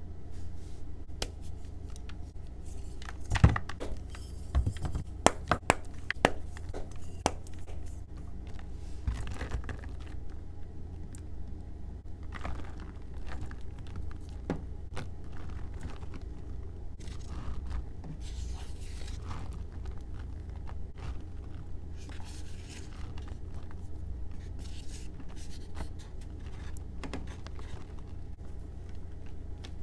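Gym chalk blocks being handled in a clear bowl. A run of sharp clicks and knocks comes in the first several seconds, then soft dry rustling as powder is poured over the blocks, over a low steady hum.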